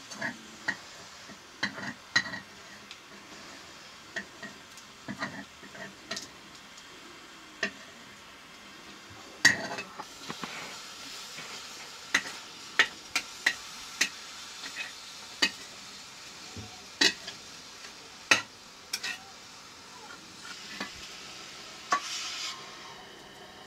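A spatula stirring and scraping in a cooking pot, knocking against its sides in many sharp clinks. From about ten seconds in, a steady sizzling hiss rises from the hot pot, swelling again near the end.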